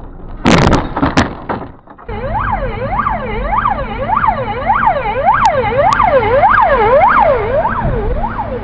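A car crash: a loud impact with crunching about half a second in, lasting about a second. After a brief drop, a police car siren sounds a fast up-and-down yelp, about two sweeps a second, to the end.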